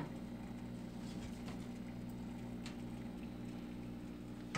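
Faint taps and ticks of a glass terrarium's metal-framed mesh screen lid being handled, over a steady low hum, with a sharper click near the end.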